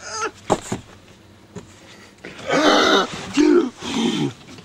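A man's acted choking: harsh, rasping coughing and throat-clearing noises that start about halfway through and last about two seconds.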